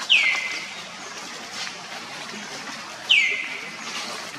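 Two loud, high-pitched animal calls about three seconds apart, each sweeping down in pitch and then holding briefly at the lower note.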